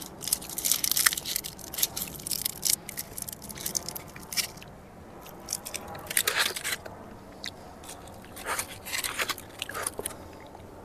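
Chocolate being bitten and chewed close to the microphone: irregular bursts of crunching that come in several clusters.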